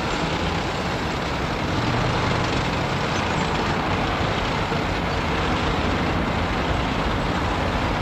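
Heavy military vehicles driving past in a parade column: a steady, mixed engine rumble with no single engine standing out.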